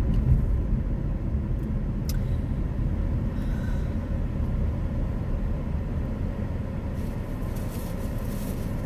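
A moving car's cabin: steady, low road and engine noise with no other sound standing out.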